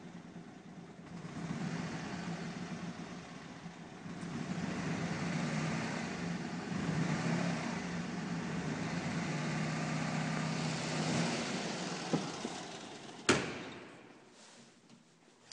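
1968 Fiat 500F's air-cooled two-cylinder engine running, its revs rising and holding higher on the hand throttle before falling away. About twelve seconds in it fades out, and a sharp click follows.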